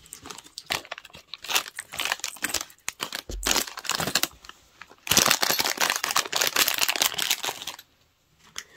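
Thin clear plastic bag crinkling and rustling as it is handled, on and off at first, then loudest and most continuous for about three seconds in the second half before stopping suddenly near the end.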